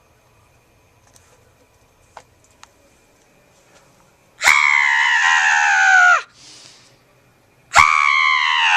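A high-pitched voice screaming twice, each scream long and falling in pitch, with a short hiss between them; the first starts about halfway in and the second near the end.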